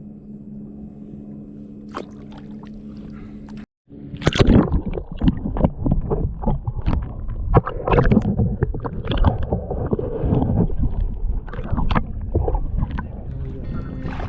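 Kayak on the water: a steady low hum for the first few seconds, then, after a sudden cut, irregular splashing and knocks against the hull that are loud and uneven.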